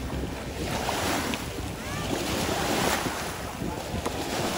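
Shallow sea water washing and sloshing, with wind rumbling on the microphone.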